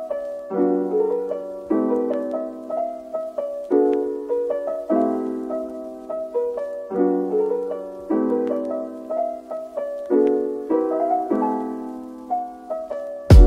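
Background piano music: soft chords struck about once a second, each ringing and fading. A sudden loud rush of noise breaks in right at the end.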